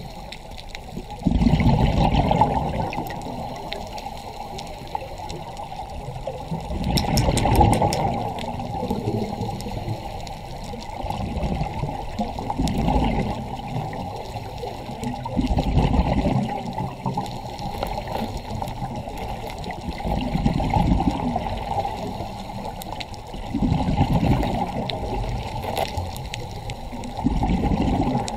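Scuba diver's exhaled bubbles from a regulator, heard underwater: a bubbling gush about every four seconds, seven in all, with a steady watery hiss between them.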